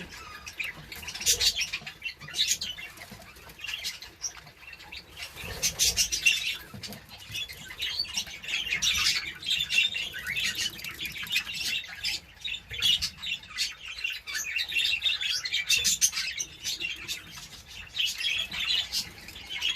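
Budgerigars chattering and chirping nonstop, with wings flapping among them.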